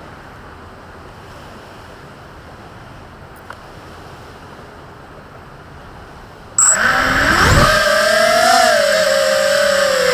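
Steady wind-like hiss, then about two-thirds of the way through an FPV quadcopter's motors suddenly spin up into a loud, high whine whose pitch wavers with the throttle.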